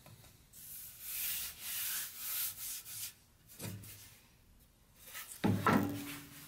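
Oak board being handled on a bandsaw table, with several scuffing rubs of wood against the table in the first three seconds and a single knock a little past halfway. Near the end a low hum sets in, with a few knocks.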